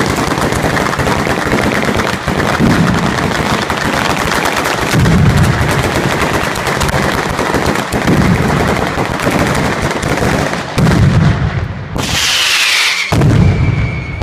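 A ground-level firework battery (batteria alla bolognese) firing: a dense, rapid-fire barrage of firecracker bangs with heavier low booms every few seconds. Near the end, a high whistle falls in pitch.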